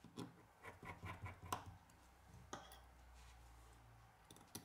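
Faint small clicks and taps of tweezers and a small Phillips screwdriver against tiny screws and the phone's metal frame. There is a quick run of clicks in the first second and a half, one more about halfway, and a couple near the end.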